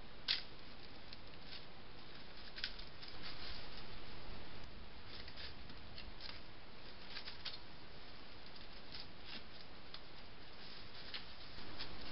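Steady hiss of a trail camera's built-in microphone, with scattered faint clicks and ticks at irregular intervals; the hiss gets slightly louder for about a second and a half twice.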